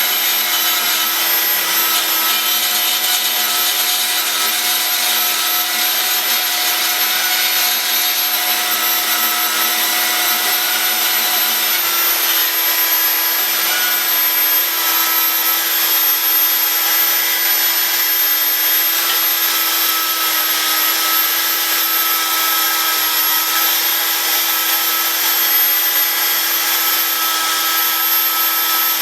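Metal-cutting bandsaw running steadily while cutting a piece of brake pad friction material to size.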